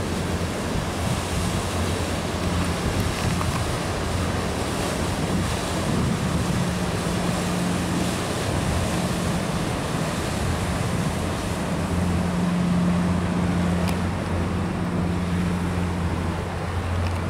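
Low, steady drone of a passing boat engine that swells and fades, over a constant wash of river water and wind noise on the microphone.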